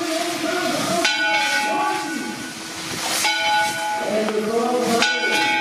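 Church bell tolling, struck about every two seconds, each stroke ringing on into the next, over a steady hiss.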